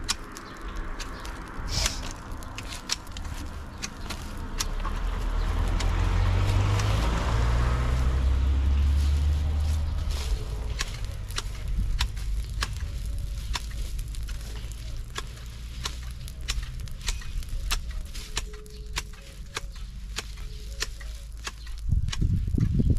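A motor vehicle passes, its low rumble swelling from about five seconds in and fading by about eleven. Throughout, a fire of green vegetation crackles with frequent sharp pops.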